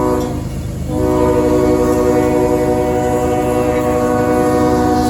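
CSX freight locomotive's multi-chime air horn sounding a short blast, then about a second in a long held blast, over the low rumble of the approaching train.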